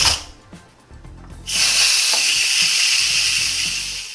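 Instant Pot steam-release valve venting the remaining pressure in a loud, steady hiss of steam: a short spurt at the very start, then a full blast from about a second and a half in that fades and stops just before the end. This is a quick release of the pressure left after a partial natural release.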